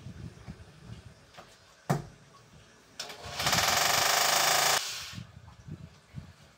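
Handheld power drill running in one burst of about a second and a half, starting a little past three seconds in, with a rapid rattling rhythm. A single sharp knock comes about two seconds in, and faint handling knocks run around it.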